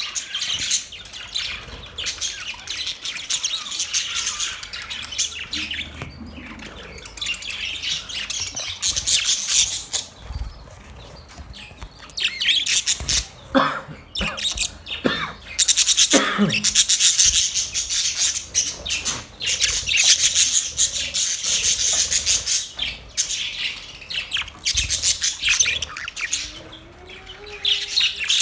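A group of budgerigars chattering and warbling nonstop in dense, fast chirps, with a few sharper squawks mixed in; the chatter gets busier past the middle.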